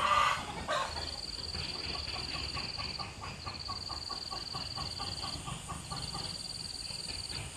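A hen clucking in a regular series, about four clucks a second, after a louder opening call. Behind it an insect keeps up a steady high-pitched buzz that stops and restarts a few times.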